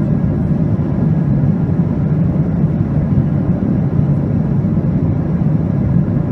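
Steady deep rumble of a jet airliner in cruise heard from inside the passenger cabin, engine and airflow noise with no change in pitch or level.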